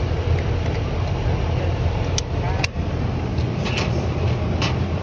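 Steady low hum of an outdoor central air-conditioning condenser unit running, with a few short clicks about halfway through and near the end.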